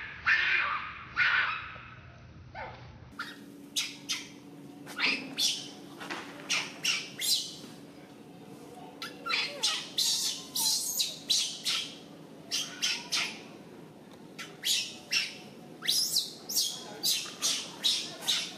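Short, harsh animal squawks repeated in quick runs of several calls at a time, with a few longer calls in the first three seconds.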